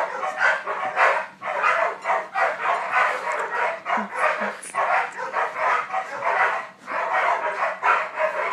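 Puppy making rough, rapid play growls and yappy barks while tugging on a toy, in quick bursts several times a second.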